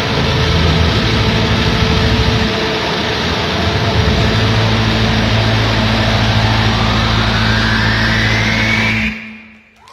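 Live punk rock band playing a loud wall of distorted guitar noise over sustained low bass notes, with a rising whine climbing over the last few seconds before the whole band stops abruptly about nine seconds in.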